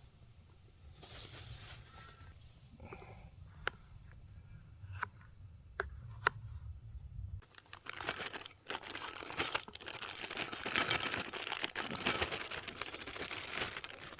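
Scattered small clicks and knocks, then, from about halfway, plastic food packaging crinkling and rustling steadily as it is handled and unwrapped.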